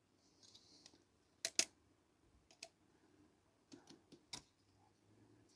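Small sharp clicks and taps of brass clock movement parts being handled as wheels are fitted between the plates: a close pair about a second and a half in is the loudest, followed by a few fainter clicks.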